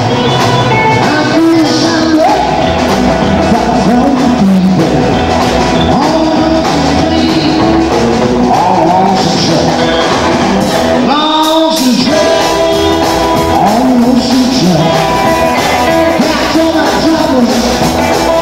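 Live rock and roll band playing, with a male singer and guitar over the band.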